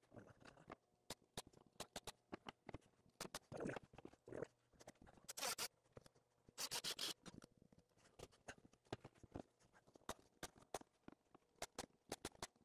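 Quiet, scattered knocks and clicks of wooden shelf boards being set into a shelving unit, with two louder scrapes about five and a half and seven seconds in.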